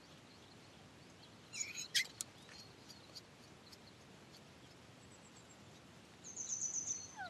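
Faint outdoor birdsong: a short cluster of high chirps with a sharp click about two seconds in, and a quick high trill near the end, over a steady low background hiss.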